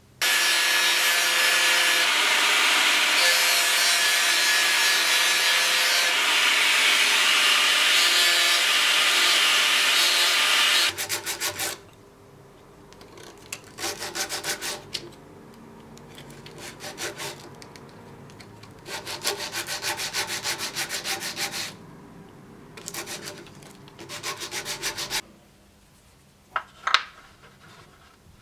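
A power tool running steadily on wood for about eleven seconds, then hand sanding: sandpaper on a wooden stick rubbed over wood in several bursts of quick back-and-forth strokes. Two light knocks near the end.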